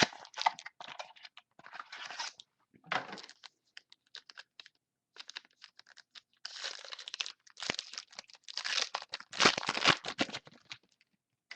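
Foil wrapper of a trading card pack being torn open and crinkled by hand, in irregular crackling bursts that grow busiest and loudest in the second half.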